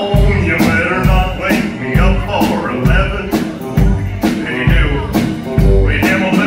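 A live country-rock band playing an instrumental stretch: the drum kit keeps a steady beat of about two hits a second under electric guitar.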